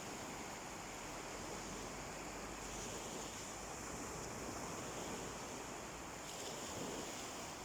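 Sea waves washing onto a beach: a steady, unbroken wash of surf.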